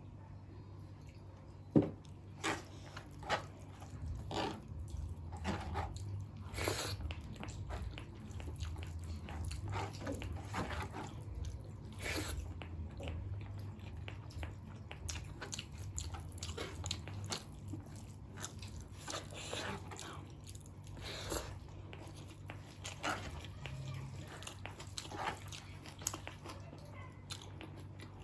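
Close-miked eating sounds: irregular chewing, biting and mouth smacks of a person eating pork with rice, with one sharper click about two seconds in.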